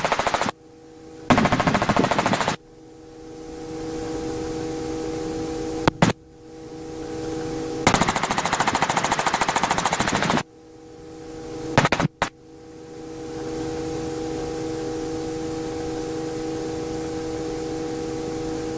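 Robinson R44 helicopter in flight, heard from inside the cabin: a steady hum of several held tones, broken three times by loud stretches of rapid rattling pulses. There are a couple of sharp clicks about 6 and 12 seconds in.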